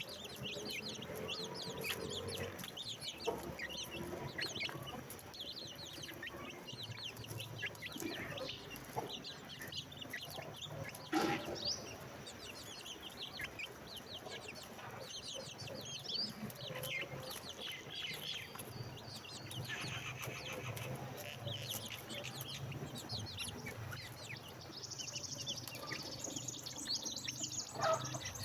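Chicks peeping: many short, high, downward-sliding cheeps overlapping without pause, with a louder call about eleven seconds in.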